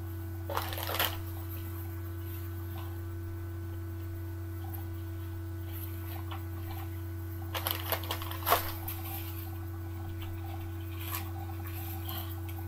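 Rustling and crinkling of a disposable diaper being unfolded by hand, in two short bursts, about a second in and again near eight seconds, over a steady low electrical hum.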